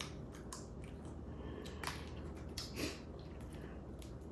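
A person eating crab: quiet chewing and mouth smacks with a handful of short, sharp clicks scattered through.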